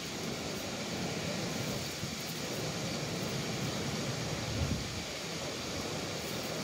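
Steady rushing noise of wind on the microphone, with a couple of faint knocks about four and a half seconds in.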